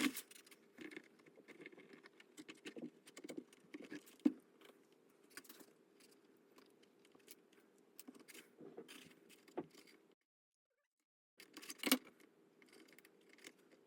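Scattered small clicks and taps of hands handling model boat hull parts while gluing and pinning them, over a faint steady hum, cut off by a brief dead silence about ten seconds in, with one sharper click about twelve seconds in.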